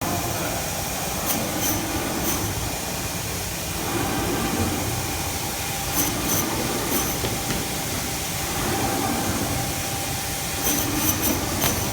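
Automatic meat band saw (HY 420A) running and sawing frozen meat: a steady mechanical running noise with a faint whine, broken by clusters of sharp ticks about every four to five seconds.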